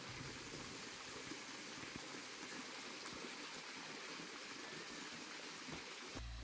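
Steady, soft, rain-like hiss of outdoor winter ambience. It cuts off just before the end, where a low hum starts.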